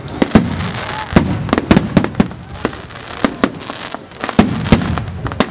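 Fireworks display bursting overhead: many sharp bangs in quick, irregular succession, with a continuous crackle between them.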